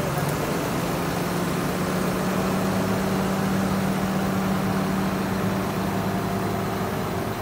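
Heavy diesel engines running at a steady pitch as a John Deere tractor tows an Iveco Eurotrakker concrete mixer truck out of muddy ground.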